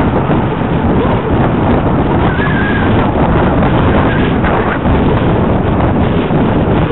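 Heavy wind noise on a helmet-mounted Veho mini camera's microphone while riding a bicycle, loud and steady, with a short high tone about two and a half seconds in.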